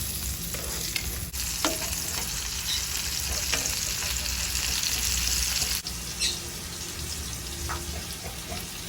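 Food sizzling in a hot frying pan while being stirred, with a few light clicks and scrapes of the utensil against the pan. The sizzle drops suddenly and turns quieter a little before six seconds in.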